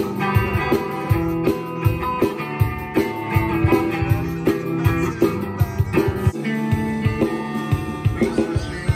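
Electric guitar music: picked notes and chords over sustained low notes, with a regular beat.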